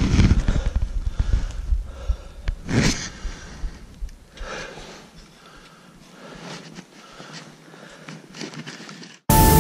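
Someone walking through snow: irregular crunching steps and rustling close to a body-worn microphone, fading quieter after about five seconds. Music starts suddenly near the end.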